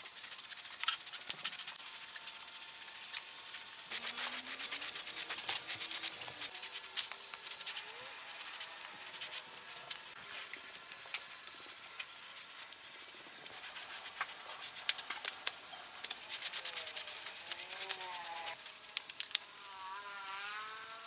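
Scratchy abrasive rubbing on a part, in irregular strokes with many small clicks and scrapes. A wavering, warbling tone comes in near the end.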